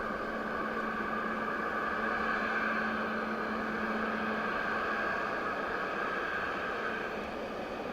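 Boeing 777-200ER jet engines whining steadily with a rushing noise, easing off near the end.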